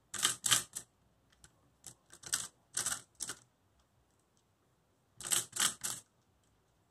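Plastic pieces of a three-ring Hungarian Rings puzzle clicking and clattering along their wooden tracks as the rings are turned by hand, in three bursts of quick clicks.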